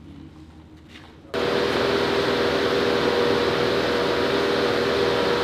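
Faint background for about a second, then a loud, steady mechanical whir with a constant hum cuts in abruptly and runs on unchanged, like a large fan or blower.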